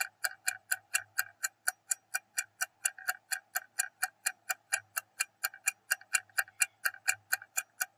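Countdown timer sound effect: a clock ticking fast and evenly, about five ticks a second.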